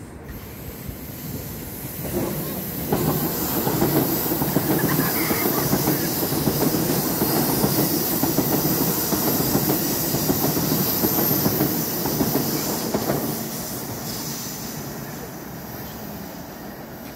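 Metro train passing on open-air track. The running noise of its wheels on the rails builds over a couple of seconds, stays loud for about ten seconds as the cars go by, then fades as the train moves away.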